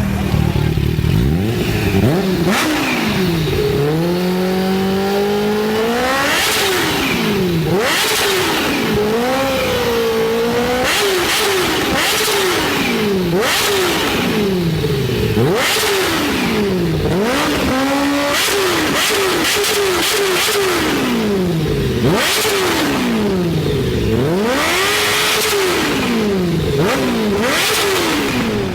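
Supercharged Kawasaki H2 inline-four motorcycle engine revving hard, its pitch sweeping up and dropping again over and over, about every one and a half to two seconds, with short crackles in between.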